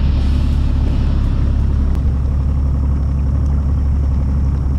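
Steady low rumble of a small aluminium fishing boat under way on open water, without change.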